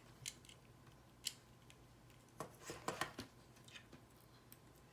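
Light, scattered plastic clicks and taps of LEGO pieces being handled and pressed together, a few single clicks and then a quick cluster about halfway through.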